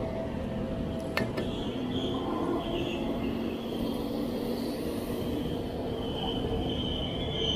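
Train running on the rails with a steady rumble; near the end its wheels begin to squeal with a steady high tone. A short sharp click sounds about a second in.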